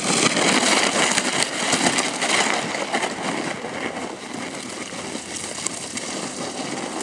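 Sled sliding down a glare-ice run, a steady rough scraping hiss of the runners and the rider's body on the ice that gets quieter in the second half.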